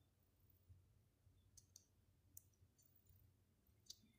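Near silence with a few faint, short clicks from fingernails and fingertips handling nail tape.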